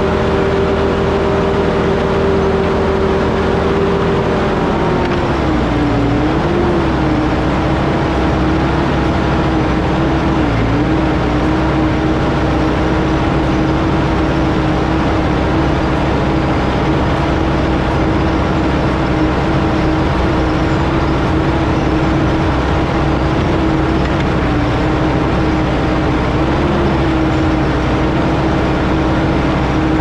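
Case 320TR skid steer's diesel engine running hard while towing a stuck 26,000 lb box truck on a rope. About five seconds in, the engine note drops as it loads down on the pull, then holds steady with a couple of brief dips.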